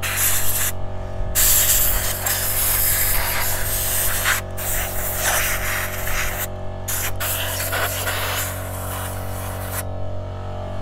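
Compressed-air blow gun hissing in long blasts with short breaks, blowing dirt and old debris out of a chainsaw, with an air compressor running steadily underneath. The blasts stop near the end, leaving the compressor's hum.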